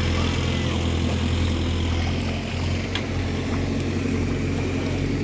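Diesel engine of a Case 851EX backhoe loader running steadily with an even low hum.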